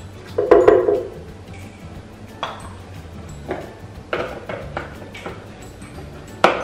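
A plastic measuring cup knocking against the blender jar as its contents are tipped in, loudest about half a second in with a short ring, then a series of light clicks and taps from the screw cap of a milk carton being opened. Soft background music plays underneath.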